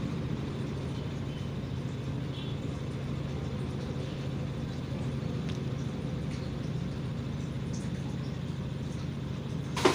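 Fabric scissors cutting through cloth along chalk lines, with a few faint snips, over a steady low background hum.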